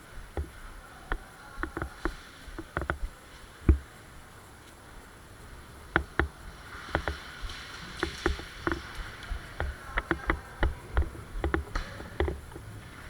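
An irregular series of sharp clicks and knocks, sparse at first and then coming several a second, with one heavier thump about four seconds in.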